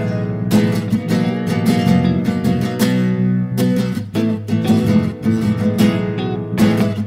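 Background music on acoustic guitar, with quick plucked notes and strums.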